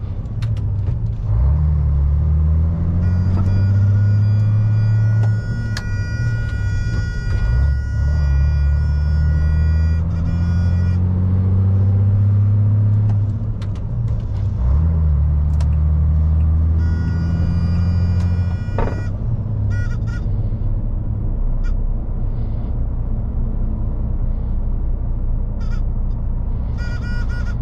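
MAN lorry's diesel engine pulling through the gears: the engine note climbs about four times, with a short dip at each gear change, then runs steadily. A steady high-pitched whine sounds over it twice for several seconds, and short high squeaks come near the end.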